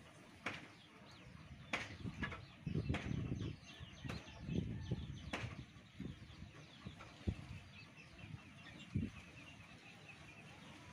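A kitten scuffling and pouncing on a wooden plank floor: scattered soft thumps, taps and rustles, busiest a few seconds in.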